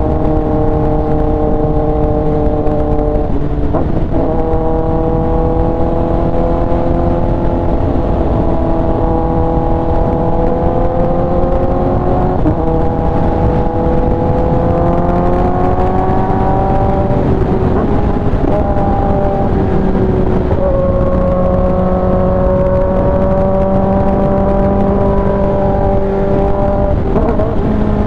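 Kawasaki ZX-10R inline-four through an SC-Project exhaust, running under way at steady revs. The engine note breaks briefly about four seconds in, shifts pitch a few more times, and climbs slowly for a few seconds in the middle.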